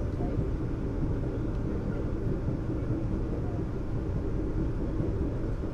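Amtrak passenger train heard from inside the coach while moving: a steady low rumble of wheels on rail as it crosses a steel truss bridge.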